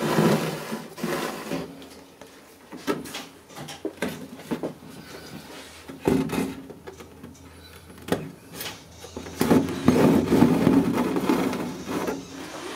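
Steel coil springs on jute chair webbing being lashed with twine by hand: rustling and rubbing of twine and webbing with scattered knocks and clicks of the springs, louder stretches of handling near the start and again about ten seconds in.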